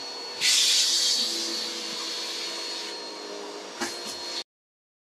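Upright vacuum cleaner running with a steady whir and a thin high whine. It gets louder and hissier about half a second in and then slowly eases. There is a single knock near the end, and then the sound cuts off suddenly.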